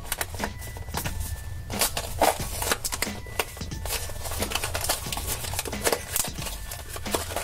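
A cardboard blind box being opened by hand: scattered clicks, scrapes and rustles as the end flap is pulled open and the card is worked apart, over quiet background music.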